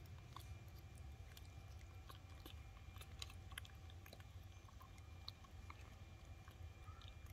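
Faint, scattered little clicks and smacks of baby macaques eating soft porridge off a spoon, with the metal spoon now and then touching the plastic bowl, over a low steady background hum.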